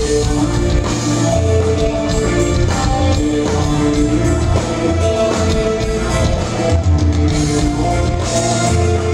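Rock band playing, with drum kit and guitar over held, changing notes.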